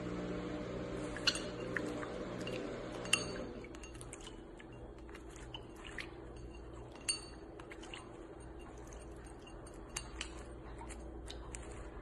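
Scattered sharp clinks of rosy-faced lovebirds' claws and beaks against a glazed pet water bowl as they bathe, each with a brief high ring, the loudest about three seconds in. A low steady hum underlies the first three and a half seconds, then stops.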